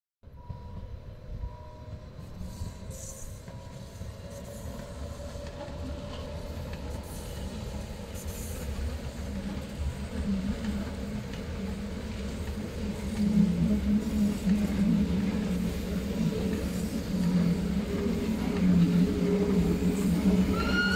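Red Rhaetian Railway electric passenger train on the Bernina line arriving and running closer, its rumble and hum growing steadily louder. A short high whine comes near the end.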